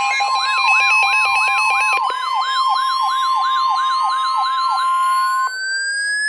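NOAA Weather Radio's steady 1050 Hz alert tone layered with electronic siren sounds: a fast rising-and-falling yelp about three times a second and an alternating two-pitch tone. The steady tone and the yelp stop about five seconds in, leaving a slowly rising tone.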